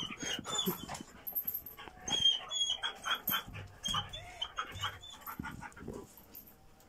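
German shepherd dog giving short, high whimpers, with scuffing and clicks as it moves about on a concrete floor.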